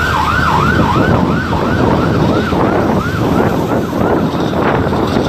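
Ambulance siren in fast yelp mode, a quick rise-and-fall wail about three times a second, growing fainter and dying away after about four seconds. Under it runs the steady rush of road and wind noise from a moving vehicle.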